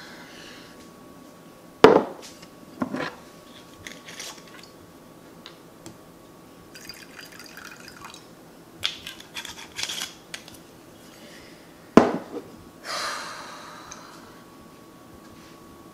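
Tea being made at a kitchen counter: sharp knocks of crockery set down on the counter, two of them loud, about two and twelve seconds in, clusters of small clinks, and a short pour of liquid into a mug just after the second knock.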